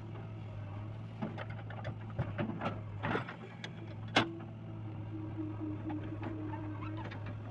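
JCB 3DX backhoe loader's diesel engine running steadily under digging work, with scattered knocks and clatter from the backhoe arm and soil. A sharp bang about four seconds in is followed by a steady higher tone that lasts about three seconds.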